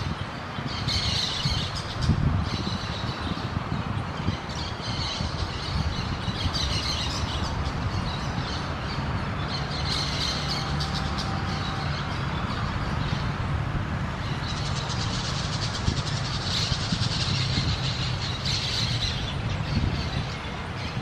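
Orange-chinned parakeets chattering in repeated bursts of high, rapid chirps, over a steady low rumble.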